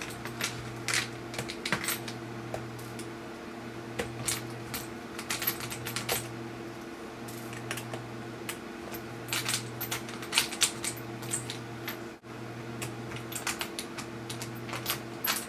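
Scattered small clicks and taps of a small screwdriver working tiny screws out of the sides of a Dell Inspiron 6400 laptop's LCD screen, with the screws and tool knocking on the plastic and metal, over a steady low hum.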